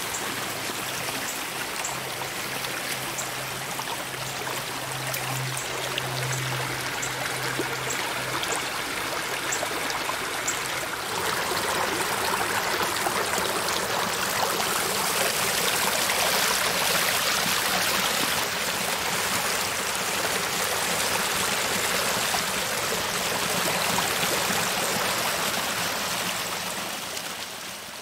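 Water rushing and splashing out of a corrugated plastic culvert pipe into a rocky creek bed, a steady flow that grows louder about eleven seconds in and fades out at the end.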